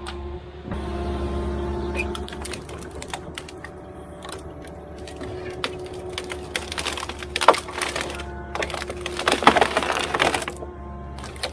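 Background music with steady held tones, over a run of sharp clicks and cracks that is densest and loudest around seven to ten seconds in.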